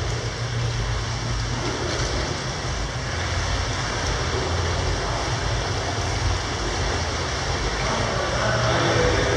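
Steady background noise of an indoor pool hall: a constant low rumble with an even hiss of water and air-handling noise over it.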